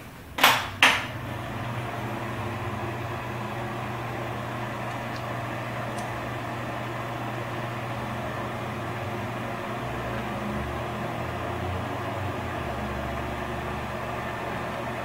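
Two sharp clicks about half a second apart near the start, then a bathroom exhaust fan running with a steady hum.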